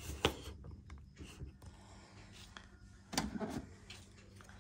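Faint handling noises: two sharp clicks right at the start, scattered light knocks, and a short rustle a little after three seconds.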